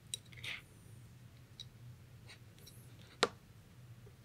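Faint clicks and scrapes of small hand tools as a spring-loaded puller is worked onto an air rifle's metal valve seat, with one sharp click about three seconds in.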